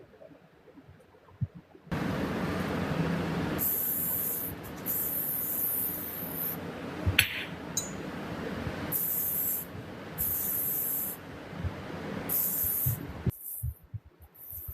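Steady rushing noise with five short bursts of hissing spray on top, and a single metallic clink about seven seconds in; it stops suddenly near the end.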